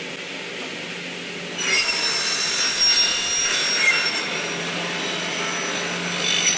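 Circular saw blade of a double-head aluminium cutting machine, driven by a 2.2 kW motor. A steady hum of the spinning blade gives way, nearly two seconds in, to the blade cutting through an aluminium profile: a loud, high ringing screech lasting about two seconds. It then eases to a quieter steady whir. The cut goes smoothly, with the blade cutting 'very sweetly'.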